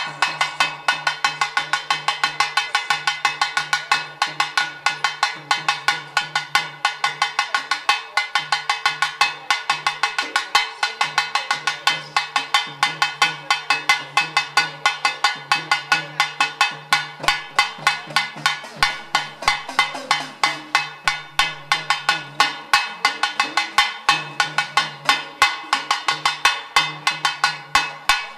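Rapid, steady metallic percussion of about five strikes a second, each strike ringing on. It is played without a break while an aarti lamp is offered, and a low tone comes and goes beneath it.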